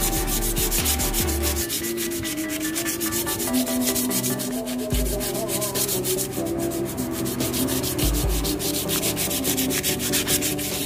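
Sandpaper rubbed by hand over a painted metal scooter fender in quick, even back-and-forth strokes, scuffing down the old paint for a repaint.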